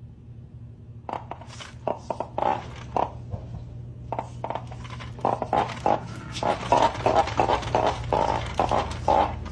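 Plastic push-along chicken toy's orange feet slapping a wooden floor as it is pushed along, in a run of quick irregular slaps that come faster and louder in the second half.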